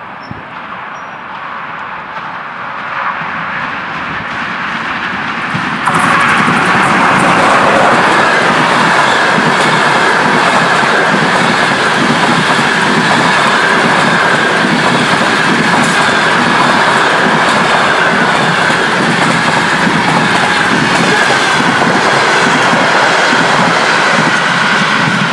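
Passenger train hauled by a ChS4 electric locomotive approaching and passing close by: the sound grows louder for the first few seconds, jumps up abruptly about six seconds in, then becomes a steady rumble of coaches with wheels clattering over rail joints and a steady high ring from the wheels.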